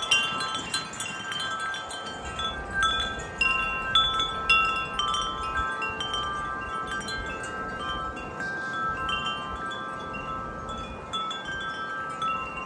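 Wind chimes ringing in strong gusting wind, many overlapping metal tones struck over and over, busiest in the first few seconds, with wind rumbling on the microphone.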